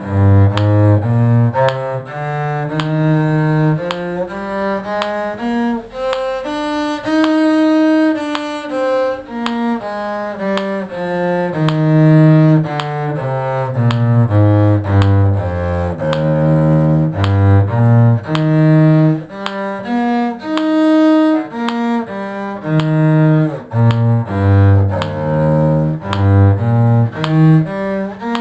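Bowed cello playing a two-octave E-flat major scale and arpeggio in steady separate notes, climbing from the low E-flat to the top and back down twice.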